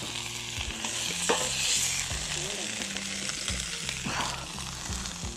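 Hot oil sizzling in a cast iron skillet over a wood-burning rocket stove, with a few sharp clicks and scrapes of a cooking utensil.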